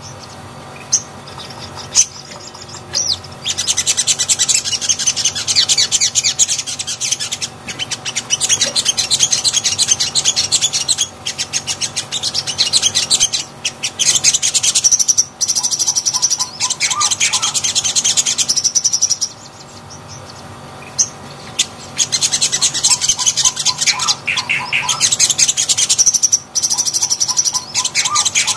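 A caged sogon (sogok ontong) sunbird singing: long bouts of rapid, high-pitched twittering with short pauses between them, and a lower run of quick clear notes near the end of two bouts.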